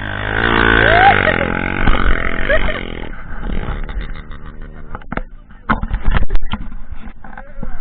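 Trail dirt bike's engine revving hard under load on a steep hill climb, its pitch rising and falling with the throttle, then dropping to a lower, uneven run about three seconds in, with a series of sharp knocks and cracks as the bike bounces over the rough ground.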